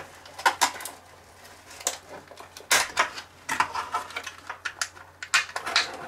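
Clear plastic packaging of a laptop memory module (SODIMM) being handled and opened by hand: irregular sharp plastic clicks and rustles, coming in several short clusters.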